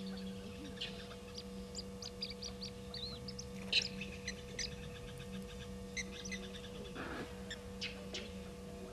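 Bush birds calling in short, sharp, repeated notes, the loudest about 4 s in, over a steady low hum. This is the alarm calling that gives away a leopard hiding in the bush.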